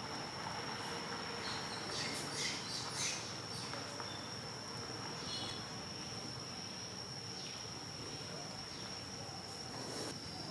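Insects droning steadily at one high pitch, with a few short high chirps about two to three seconds in and again around five seconds.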